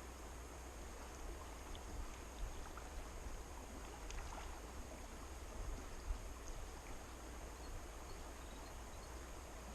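Steady rush of river water flowing over stones, with a low rumble underneath and a few faint clicks around the middle.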